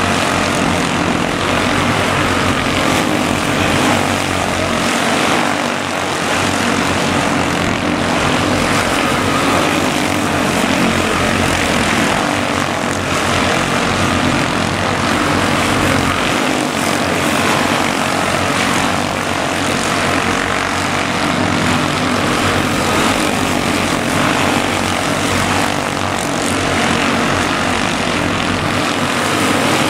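A field of quarter midget race cars with small 160 cc single-cylinder engines running at racing speed around a small oval, making a steady, continuous buzzing drone.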